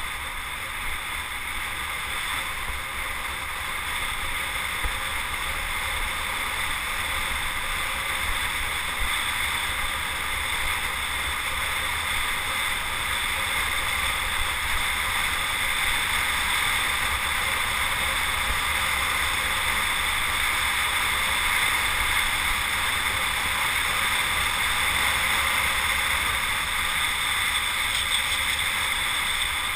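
Steady wind rushing over a moving camera's microphone, with a low road rumble underneath, slowly growing louder as the speed builds on a downhill run.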